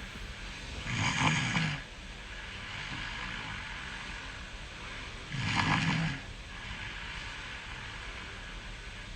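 A person snoring in sleep: two loud snores about four and a half seconds apart, with softer breathing between them.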